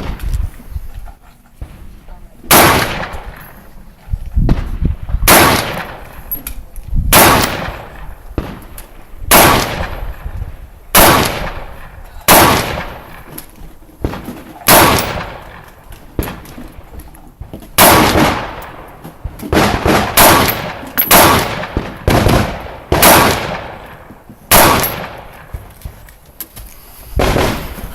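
A string of rifle shots at an action rifle match, one every one to two seconds, each sharp crack trailing a short echo.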